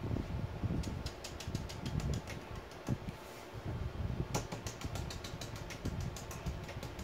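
A paintbrush pounced against a stencil on a painted cabinet door, a run of quick dabbing taps several times a second: a short run about a second in and a longer one from about four and a half seconds.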